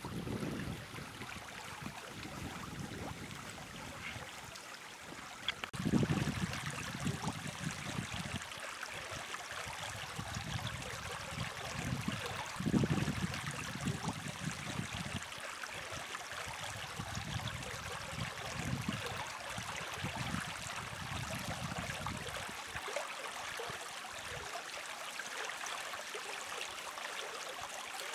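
Water of a small stream running steadily. Wind buffets the microphone in low rumbling gusts, the strongest about six and thirteen seconds in.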